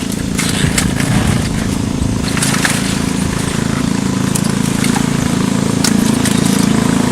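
A small engine running steadily at an even speed, with a few sharp clicks and knocks over it.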